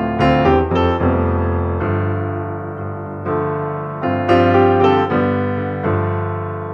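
Background piano music: notes and chords struck and left to fade, a new one entering every second or so.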